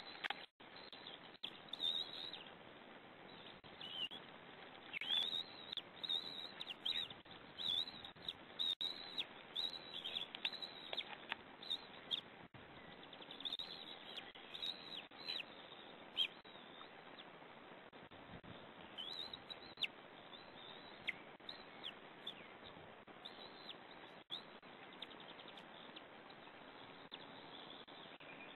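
White-tailed eagle chicks peeping as they beg while being fed: many short, thin, high calls, mostly falling in pitch, thick over the first half and sparser later, over a steady hiss from the nest-cam microphone.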